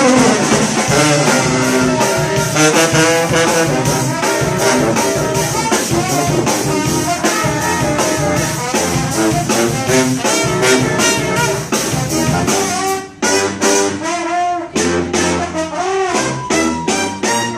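Brass band playing upbeat jazz with saxophone, trumpet and trombone over a steady drum beat. A horn slides down in pitch at the start. About two thirds of the way in, the playing thins to a sparser passage with short breaks.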